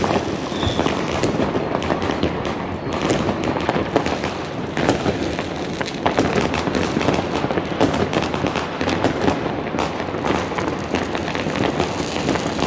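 New Year's Eve fireworks and firecrackers going off all around, a dense unbroken crackle of many small bangs and pops.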